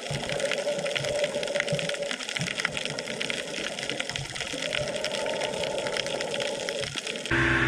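Water noise heard underwater while snorkelling: a rushing hiss full of fine crackles, with a muffled tone coming and going. Near the end it cuts abruptly to a louder, steady hum.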